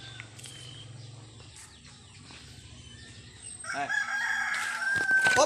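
A rooster crowing once, starting about two-thirds of the way in: one long call that is held, then drops in pitch as it ends.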